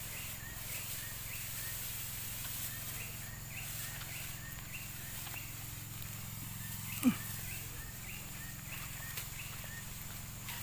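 Steady low drone of the Robin petrol engine driving the high-pressure washer pump that feeds the spray hose. Over it, a short high chirping call repeats about one and a half times a second, and a single loud call falls in pitch about seven seconds in.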